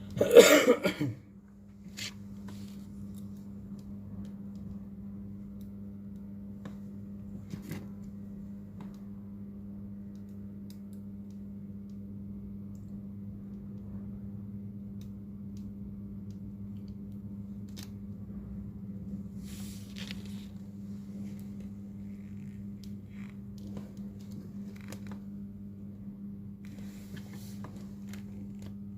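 Steady low electrical hum with faint scattered clicks and taps of small tools on a repair bench. A short, loud noisy burst comes right at the start.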